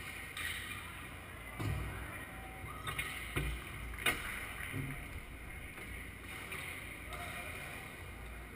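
Echoing hall ambience of an indoor sand volleyball game, with distant players' voices. A dull thump comes a little under two seconds in, then a few sharp slaps of hands on the volleyball, the loudest about four seconds in.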